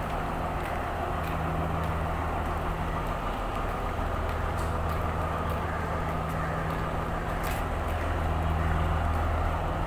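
Sri Lankan diesel multiple-unit passenger train's engine running with a steady low drone as the train moves slowly alongside the platform. There are a few faint clicks, and it gets slightly louder near the end.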